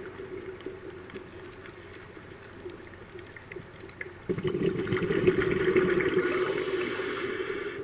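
Scuba diver's breathing underwater: a quiet stretch, then, about four seconds in, a sudden gush of exhaled bubbles from the regulator that runs for about three seconds.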